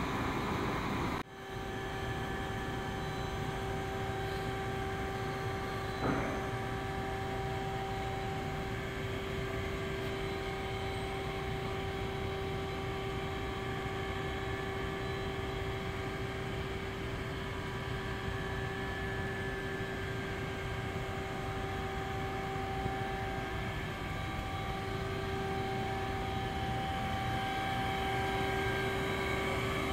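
Okuma LU-45M CNC lathe running with its spindle turning at 700 RPM: a steady, quiet machine hum with a constant tone through it. One light knock about six seconds in.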